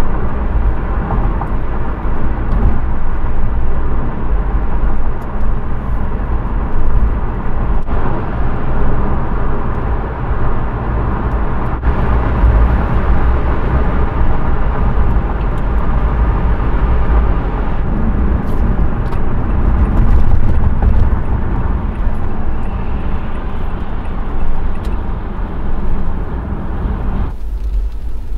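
Steady low road rumble inside a car's cabin at highway speed, from the tyres and engine. Near the end it cuts off abruptly to a quieter, thinner background.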